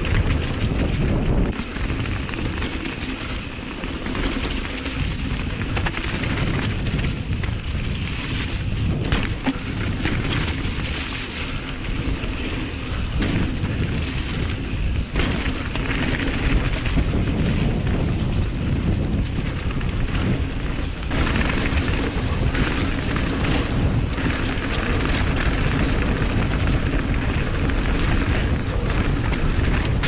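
Wind buffeting a POV camera's microphone on a fast downhill mountain-bike descent, over the rumble of tyres on a wet, rough trail. Frequent knocks and rattles come from the bike as it takes the bumps.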